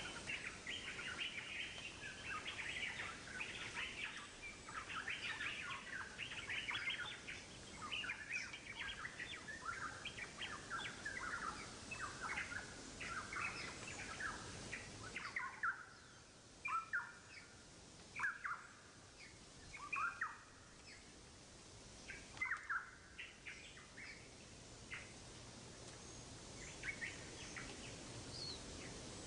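Small birds chirping in the background, many short calls close together at first, thinning to scattered chirps about halfway through.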